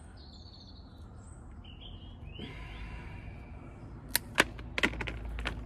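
Four sharp clicks between about four and five seconds in, from hand work on a length of rubber fuel hose, over a rustling of handling noise that builds from about halfway through. Birds chirp in the first second or so.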